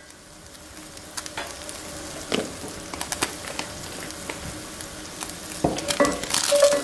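Ground beef and diced onion sizzling in a cast-iron skillet, a steady hiss with scattered small clicks and pops. Near the end the clicks and taps get louder and busier as a meat chopper is taken up in the pan.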